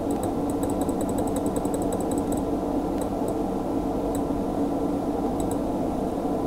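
Steady background hum, with a quick run of light clicks over the first two seconds and a few more later: a mouse scroll wheel turning as a PDF page is scrolled down.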